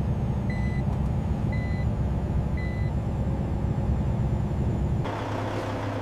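Heavy truck engine running steadily at cruising speed, heard as a low rumble inside the cab, with three short electronic beeps about a second apart. About five seconds in, it cuts to a quieter, steadier engine hum with hiss.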